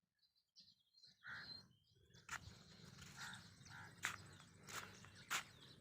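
Faint farmyard sounds: small birds chirping, a short animal call about a second in, and a few sharp clicks or knocks over a low steady hum in the second half.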